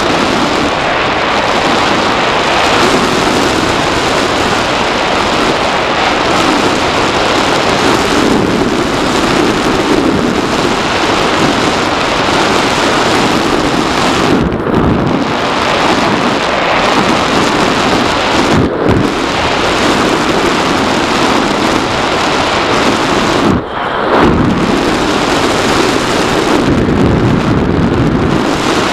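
Loud, steady rush of airflow mixed with the electric motor and propeller of a Bixler 2 foam RC plane, heard through a camera mounted on the plane in flight. The noise dips briefly three times in the second half, the deepest dip near the end.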